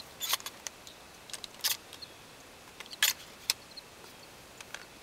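A scattering of short metallic clicks and clacks from a Mossberg Maverick 88 12-gauge pump-action shotgun being handled, the sharpest about three seconds in.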